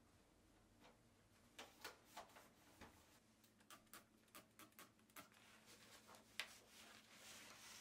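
Faint, scattered light clicks and taps, with one sharper click about six seconds in, and a soft rubbing near the end: a cloth and a paper towel wiping down the metal surfaces of kitchen appliances.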